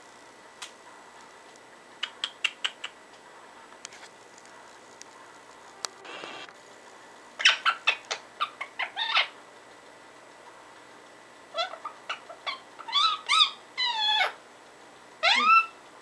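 Indian ringneck parakeet chattering gibberish: a few quick clicks, then several runs of short calls that bend up and down in pitch, with pauses between them.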